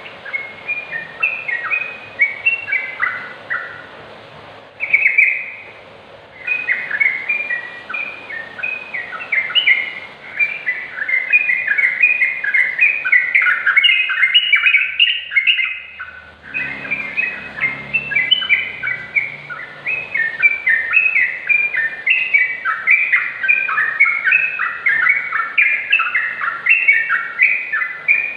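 Yellow-vented bulbul singing: a fast, continuous run of short chattering notes that step up and down in pitch, breaking off briefly twice.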